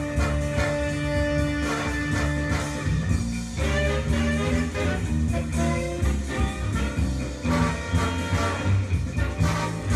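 A music track played over a pair of Graham Audio Chartwell LS6 two-way speakers and picked up by the camera's microphone in the room.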